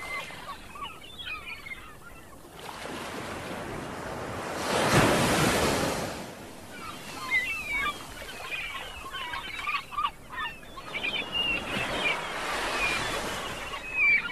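Sea waves washing on a rocky shore, the surf noise surging loudest about five seconds in and again near the end, with short high chirping calls over it.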